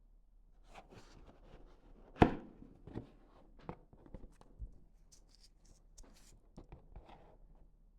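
Hands handling a cigarette pack: scattered rustles and light clicks, with one sharp knock about two seconds in.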